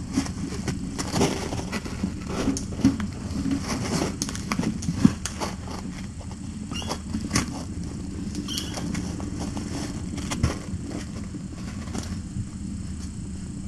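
Steady low hum of room noise with frequent light taps and clicks from kittens scampering and pouncing on toys on a fleece blanket.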